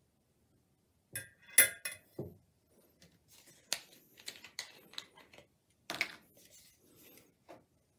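Sharp glass-on-glass clinks as a wick in its glass holder is set into the neck of a small glass oil-lamp font inside a glass chimney, the loudest clink a second and a half in. Lighter clicks and knocks follow for a few seconds.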